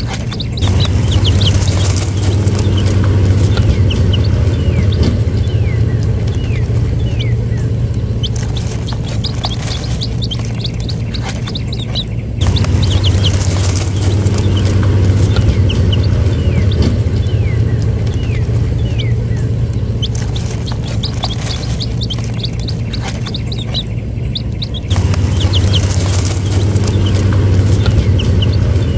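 Baby chicks peeping: many short, high cheeps, each falling in pitch, over a steady low hum.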